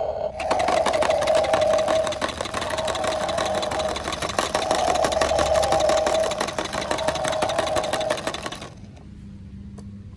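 Battery-operated toy transport truck set going by a button on its cab: a rapid, buzzing rattle that starts just after the press and cuts off suddenly after about eight seconds.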